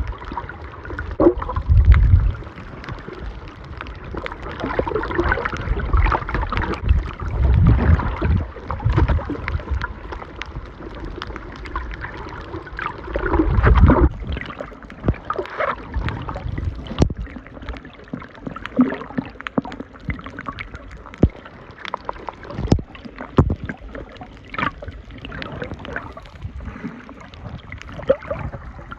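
Water sloshing and gurgling around a camera filmed underwater, with irregular heavy surges in the first half and scattered sharp clicks and ticks throughout.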